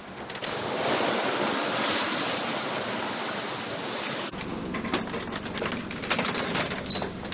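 Wind and sea rushing past a sailing yacht in a steady hiss. About four seconds in it changes abruptly to a quieter patter of water droplets with many sharp, irregular ticks.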